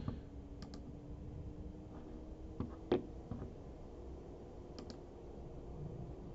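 A few scattered computer mouse clicks over a faint steady hum.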